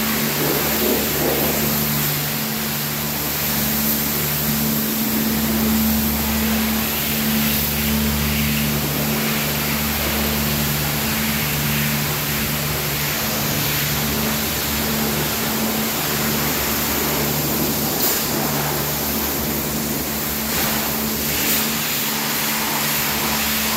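Tank-washing plant machinery running steadily: a constant low mechanical hum under a dense hiss.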